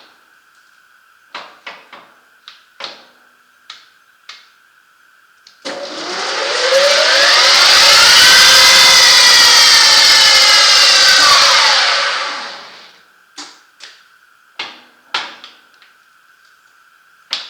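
Howa Sangyo L-150 engine lathe started up: the motor and geared headstock spin up with a rising whine about six seconds in, run steadily, then wind down with a falling whine and stop about twelve seconds in. Sharp clicks and knocks, as of levers and handles being worked, come before and after the run.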